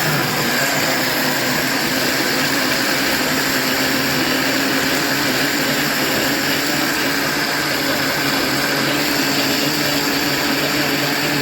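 SilverCrest countertop blender's motor running continuously with the switch set to continuous blending, a loud steady whir that does not change in speed.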